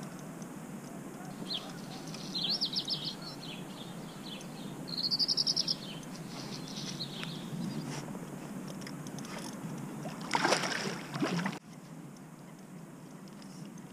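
Fishing reel's drag giving two short bursts of rapid ticking as a hooked carp takes line, over a low steady background noise. A louder rush of noise comes about ten seconds in.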